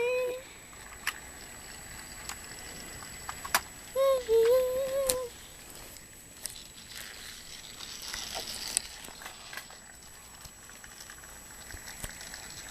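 Light, irregular clicks and rattles from a Thomas toy train running around its track. About four seconds in, a child gives a short, high, sung-sounding vocalisation.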